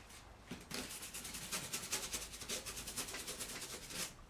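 A stiff paintbrush scrubbed in quick back-and-forth strokes over a rough, textured castle-wall terrain piece, working paint into the surface. The strokes start about a second in, go at roughly five a second, and stop near the end.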